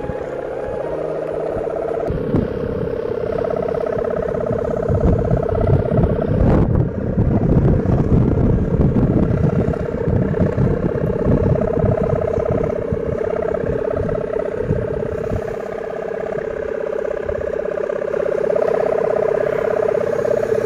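Sendaren, the humming bow on a flying traditional kite, droning in the wind as a steady two-tone hum that swells and fades. Wind gusts rumble on the microphone through the first half.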